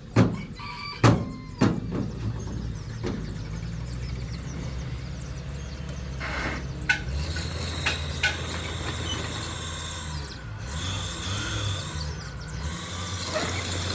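Heavy diesel earthmoving machinery running with a steady low engine hum that changes pitch a couple of times, and three loud bangs in the first two seconds.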